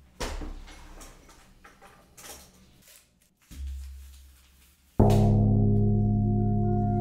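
Faint scattered clicks and knocks, then about five seconds in a loud ringing musical tone with several overtones starts suddenly and holds almost steady, like a singing bowl or gong sound effect.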